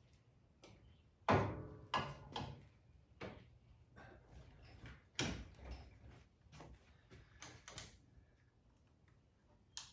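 A series of metal clanks and knocks from parts being handled on a compact tractor. The first, about a second in, is the loudest and rings briefly, and a few more follow at irregular spacing.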